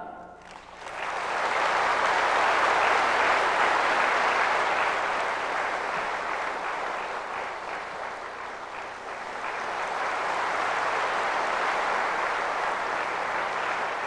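Large audience applauding after a choir's piece ends. The clapping begins just under a second in, eases a little midway, then picks up again.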